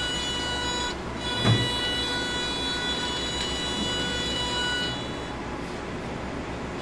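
Power wheelchair drive motors giving a steady electric whine as the robot base turns; the whine breaks off briefly about a second in and stops near the end. A single low thump about a second and a half in.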